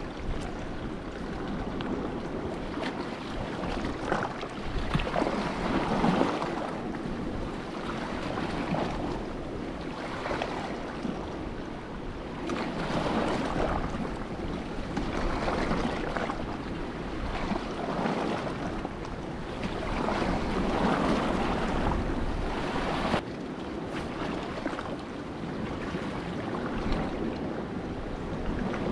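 Sea waves washing in and out in repeated swells every few seconds, with wind buffeting the microphone.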